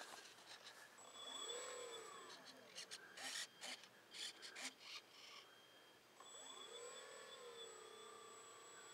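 Electric motor and propeller of an E-flite Apprentice RC seaplane. The motor briefly spins up and winds down about a second in, a few knocks and scrapes follow, then from about six seconds it spools up again and runs steadily at low throttle with a high thin whine.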